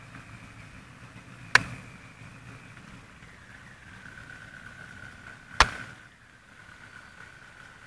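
Radio-controlled model warship's sound unit firing its gun effect: two sharp bangs about four seconds apart, over a steady high whine that drops in pitch about three seconds in.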